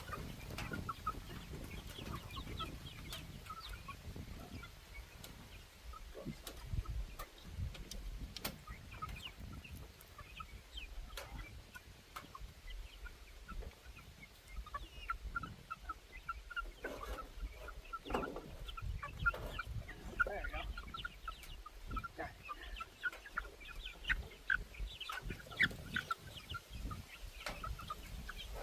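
A flock of backyard chickens clucking: many short, scattered calls overlapping throughout, with a few sharp clicks and a low rumble underneath.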